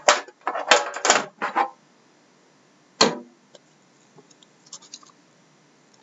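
A trading-card box being handled: scraping and rustling for about a second and a half as the tin is slid out of its cardboard box, then a single sharp knock about three seconds in, followed by a few faint taps.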